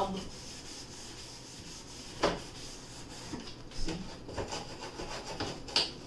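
A rag with a scouring pad rubbing and scrubbing a refrigerator shelf, wet with bleach, in short irregular strokes. A few sharper knocks come through, the loudest a little over two seconds in.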